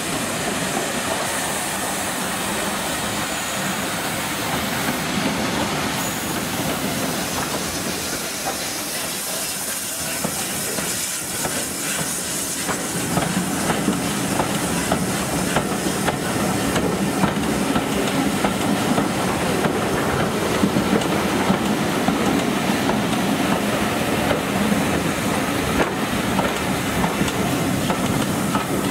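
Steam train running past with wheel clatter over the rail joints; about halfway through, this gives way to a steady steam hiss from a standing LNER B1 4-6-0 locomotive as coaches roll by on the next track, with more clicking from the wheels.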